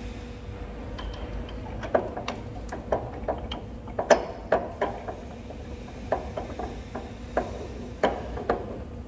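Irregular metal-on-metal clicks and clinks from a 150 mm four-cartridge facing cutter being pushed up by hand and seated onto a jig borer's spindle, about a dozen knocks with the loudest about four seconds in.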